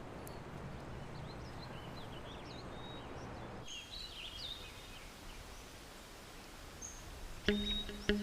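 Birds chirping faintly over a steady low background hum. Near the end, music starts with short, evenly repeated notes.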